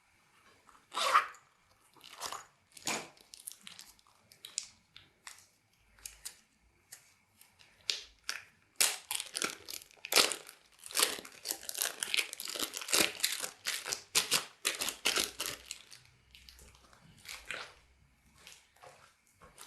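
Slime being squished, stretched and pressed by hand, making irregular sticky crackles and pops, thickest in the middle stretch.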